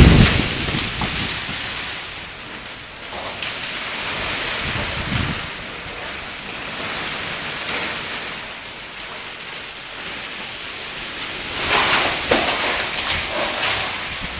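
Strong gusty wind rushing through trees, with a steady hiss of tossing leaves and branches and the wind buffeting the microphone. A gust peaks right at the start and another builds about twelve seconds in.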